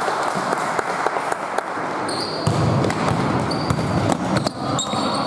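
Basketball game on an indoor court: the ball bouncing in repeated sharp knocks, with short high squeaks from sneakers on the floor.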